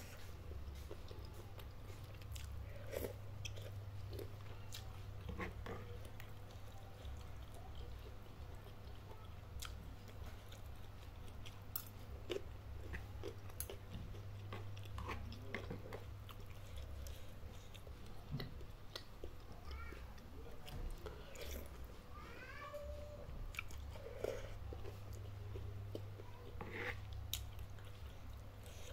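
Close-up chewing and biting of instant noodles with bok choy and chilies, with small wet crunches and short clicks of the spoon and fork against the plastic bowl, over a steady low hum.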